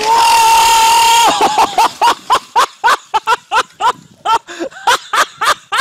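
A person's high cry held for over a second, then loud laughter in short rapid bursts, about four a second.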